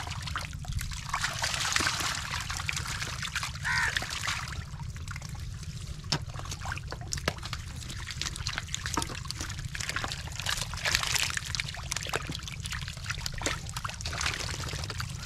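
Hands scooping stinging catfish out of shallow muddy water into a metal bowl: wet mud squelching and many small splashes and slaps as the fish thrash in the water.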